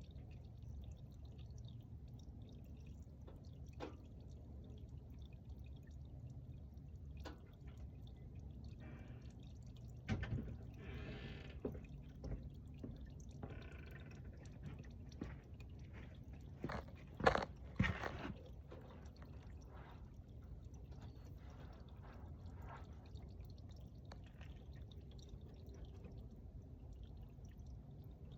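Motor oil dripping and trickling from a car's drain into a drain pan near the end of draining, over a steady low background, with scattered clicks and a few sharp knocks, loudest about seventeen seconds in.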